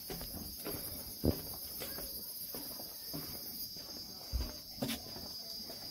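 Night rainforest insect chorus, a steady high-pitched drone, with footsteps walking on a wooden boardwalk at an even pace, a few of them louder thumps.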